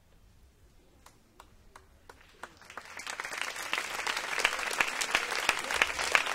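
Audience applause: a few scattered single claps about a second in, then clapping spreads through the crowd and swells into full applause.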